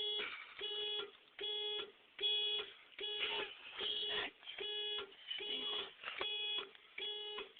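Car alarm going off as a steady, evenly repeated pitched beep, about five beeps every four seconds, each lasting under half a second.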